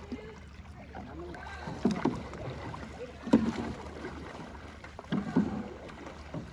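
Many canoe paddles stroking in rough unison, dipping and splashing through the water with a surge about every one and a half seconds, one stroke with a sharp knock a little past the middle. A low steady rumble of wind on the microphone runs underneath.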